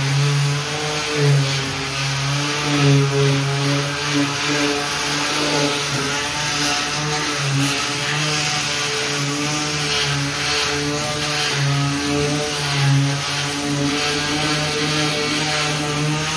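Electric polishing machine fitted as a sander, running steadily on a car's painted bodywork, its motor hum wavering slightly as it is pressed against the panel.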